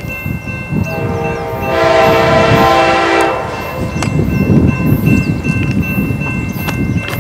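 Amtrak Southwest Chief passenger train: the locomotive's horn sounds one long chord of about two and a half seconds, then the train's rumble and wheel noise swell as it passes.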